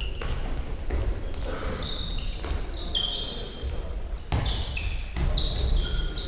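Handball game on a wooden sports-hall floor: a ball bouncing and striking with sharp knocks, and players' shoes squeaking in short high-pitched chirps as they run and turn.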